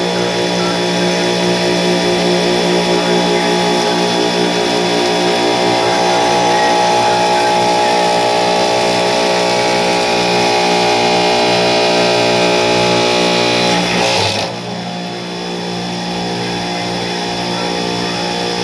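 Supermarket refrigeration compressor rack running: a loud, steady mechanical hum with several droning tones over a hiss. About 14 seconds in the hiss drops away and the sound gets a little quieter, the hum carrying on.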